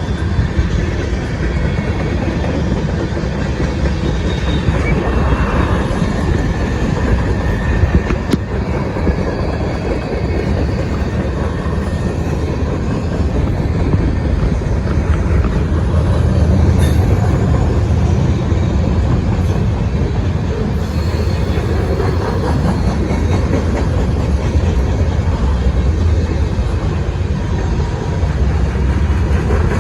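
CSX freight train passing close by: a steady, loud rumble with the clatter of steel wheels on the rails.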